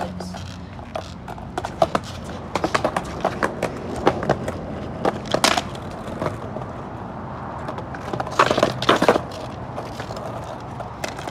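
Skateboard on asphalt: the wheels rolling, with repeated sharp clacks and slaps as the deck is popped and lands on the ground during trick attempts.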